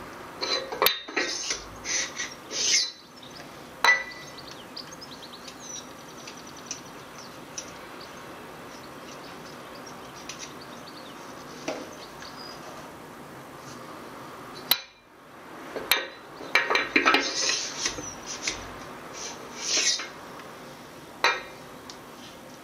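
Light metal clinks and taps from a piston and piston rings being handled in the cylinder bores of a Bedford RL six-cylinder engine block while the ring end gaps are checked. The clinks come in a bunch over the first few seconds and again in the last seven or so, with a quieter stretch of about ten seconds between.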